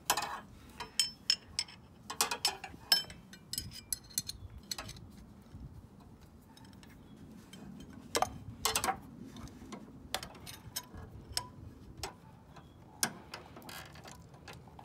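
Steel combination wrenches clinking and clicking as they are fitted onto the 17 mm bolt of the serpentine belt's auto-tensioner and hooked onto each other, in a few scattered clusters of sharp metallic clicks.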